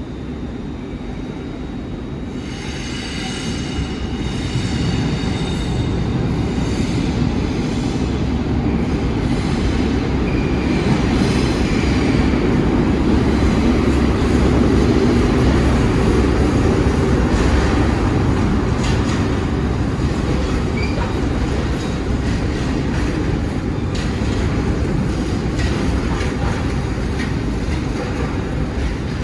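Rail Adventure Class 43 HST diesel power car running past at close range, loudest about halfway through, followed by the steady rumble and wheel noise of the train of yellow engineering vehicles it is hauling as they roll by.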